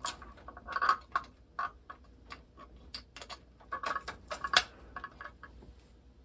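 Electrical wires being pushed and handled into a receptacle box: a string of small irregular clicks and taps with some rubbing, the sharpest click about four and a half seconds in.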